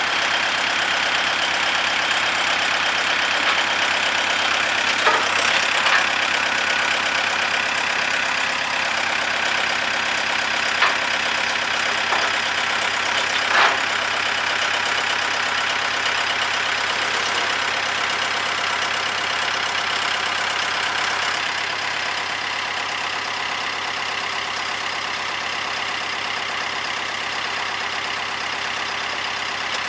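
Kubota D1105 three-cylinder diesel engine of a Madvac rider vacuum running steadily, with a few short knocks about 5 to 14 seconds in. The sound drops a little in level about two-thirds of the way through.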